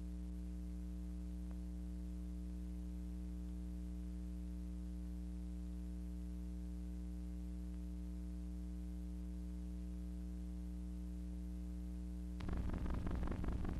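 Steady electrical hum of several fixed tones, with no other sound. About a second before the end it gives way suddenly to a louder, rough noise that pulses rapidly.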